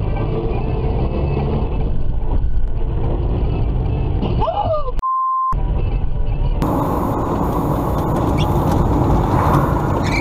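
Dashcam sound from inside a moving car: a steady low rumble of engine and road noise. About five seconds in a short beep at one pitch, lasting about half a second, replaces all other sound, like a censor bleep. Shortly after, the sound cuts to a different car's brighter road noise.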